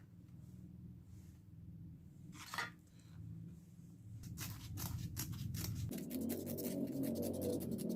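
Scissors cutting 400-grit sandpaper into a round disc, with quick repeated snips from about four seconds in and a few isolated cuts before that.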